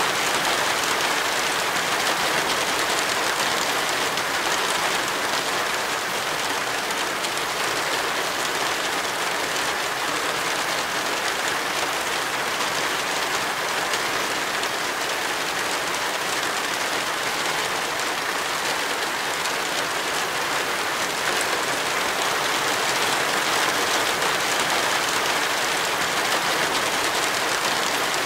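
Heavy rain falling steadily, a dense even hiss with no breaks.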